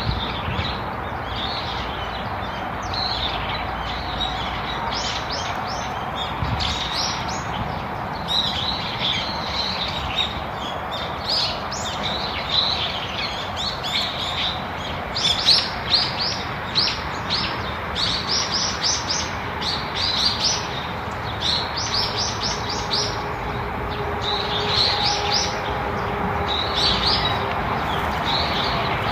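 Songbirds chirping and twittering in quick, high-pitched series over a steady outdoor hiss, busiest about halfway through.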